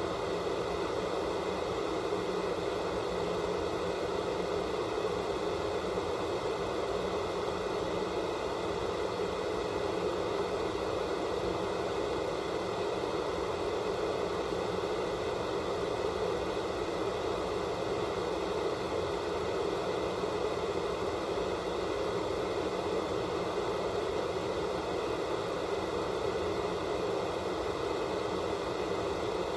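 Analog television static: the steady, unchanging hiss of a set with no signal, strongest in the lower middle range.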